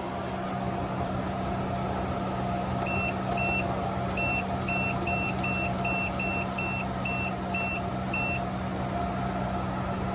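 Touch-panel control of a wall-mounted DC air conditioner beeping: about a dozen short high beeps in quick succession, starting about three seconds in, one for each button press as the set temperature is stepped down. A steady machine hum runs underneath.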